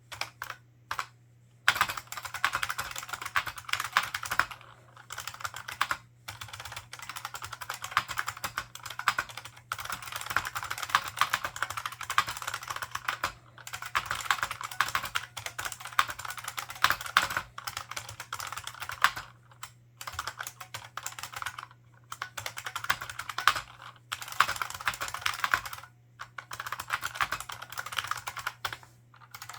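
Typing on an IBM 4683 ANPOS keyboard with membrane buckling spring switches and PBT keycaps: fast runs of clacking keystrokes, broken every few seconds by short pauses.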